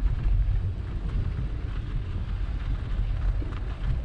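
Wind buffeting the microphone of a bike-mounted action camera as a bicycle rides along a packed-snow path, a steady uneven rumble, with faint light crackling from the tires on the snow.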